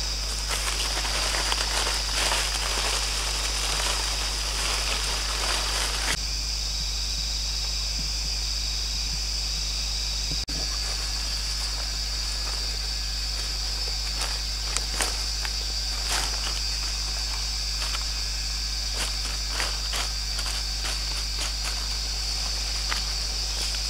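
Forest insects droning steadily in one high, even tone, with dry leaf litter and sticks crackling underfoot and in the hands. The crackling is dense for the first six seconds, stops abruptly, then comes back as scattered short rustles.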